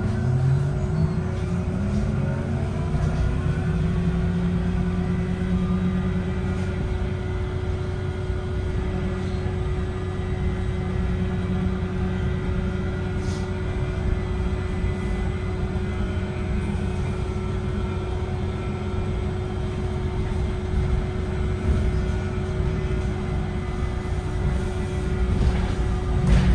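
VDL Citea SLFA-180 hybrid articulated bus under way, its drivetrain running with a steady high whine throughout: the weird battery sound. The low drive note rises in pitch in the first couple of seconds, then holds fairly even.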